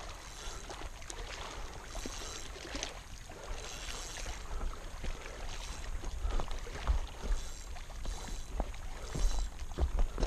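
Wind buffeting the microphone in an uneven low rumble, with soft hissing rustles every second or two and a few small knocks.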